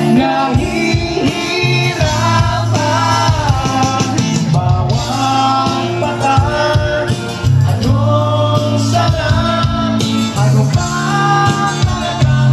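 Live band music: a singer over acoustic guitar, with a steady low bass line underneath.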